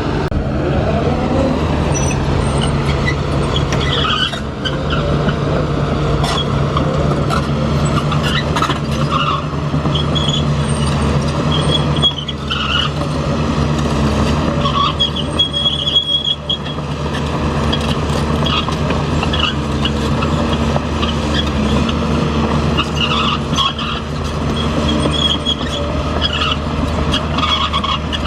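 An engine running steadily, with intermittent high-pitched squeals and scattered metallic clicks over it.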